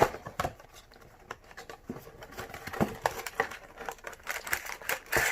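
Plastic wrapping and a cardboard booster box crinkling and rustling in the hands as the box is unwrapped and opened, with irregular small clicks and crackles.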